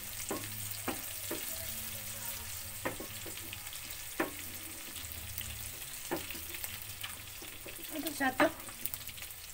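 Sliced chillies, shallots, garlic and shrimp paste sizzling in hot oil in a frying pan, fried until fragrant, with a spatula scraping and knocking against the pan about once a second. Near the end comes a louder clatter of scraping as the fried ingredients are scooped out of the pan.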